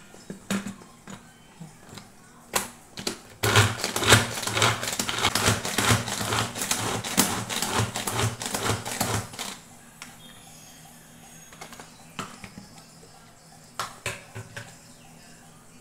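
Manual pull-cord food chopper chopping onions: a few clicks as the handle and lid are seated, then about six seconds of fast rattling clatter with a pulsing thump about twice a second as the cord is pulled again and again and the blades spin through the onion in the plastic bowl. A couple of clicks near the end as the lid comes off.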